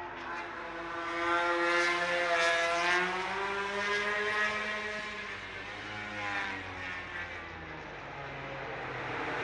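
Racing motorcycle engines at high revs heard across the circuit, their pitch sliding up and then down, loudest about two seconds in.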